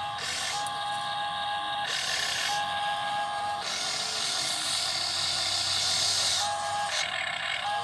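Small electric motors and gearing of a radio-controlled model excavator whining over a steady hiss, the whine starting and stopping in runs of about a second as the machine is worked.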